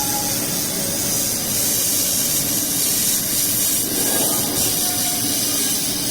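Steady hiss of a laser welding machine at work, with a faint steady hum underneath.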